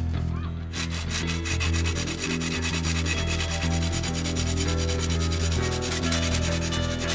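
A hand file scraping in rapid strokes across the steel of a forged katana, starting about a second in, over quiet background music.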